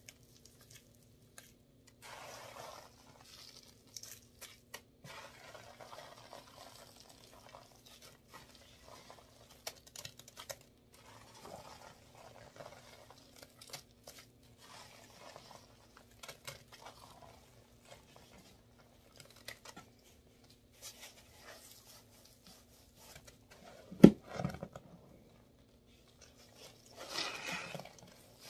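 A sponge pressed and scrubbed through thick settled Gain detergent paste, giving irregular crunchy, crackling squishes. About 24 seconds in there is one sharp loud hit, and near the end a longer, louder wet crackle as the paste-loaded sponge is squeezed in both hands.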